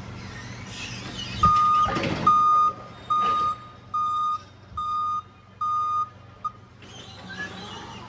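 Forklift reverse alarm beeping at one steady pitch, about one beep every 0.7 s, six full beeps and a short seventh as the forklift backs up, over the low hum of the truck.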